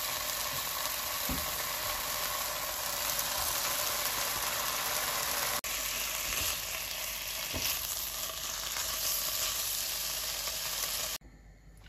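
Bacon strips sizzling in a frying pan, a steady crackling hiss. It drops out for a split second about halfway and cuts off shortly before the end.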